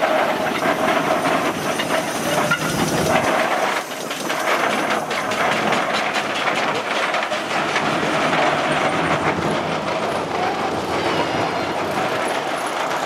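Steam traction engines and a Sentinel steam tractor driving past: steam hissing and exhaust chuffing over a steady rhythmic mechanical clatter.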